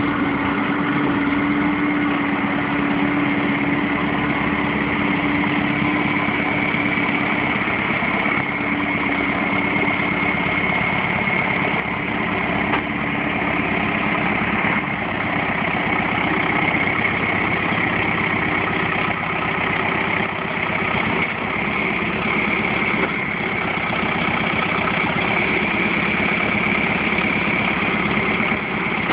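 John Deere loader tractor's engine running steadily as the machine works its loader, with a steady high whine over the engine sound from about six seconds in.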